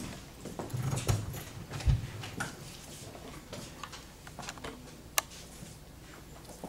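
Quiet classroom room sound while students write: scattered small clicks and knocks from pencils, paper and desks, with two low thumps about one and two seconds in and a sharp click a little past five seconds.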